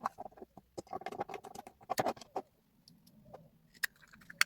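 Small hard plastic parts being handled: a quick run of clicks, taps and scraping as a micro FPV camera is pushed into a 3D-printed tilt housing, thinning out to a few sharp clicks near the end.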